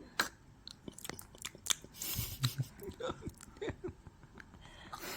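A seven-month-old baby eating yogurt: wet lip-smacking and mouth clicks throughout, with a few brief small vocal sounds about three seconds in.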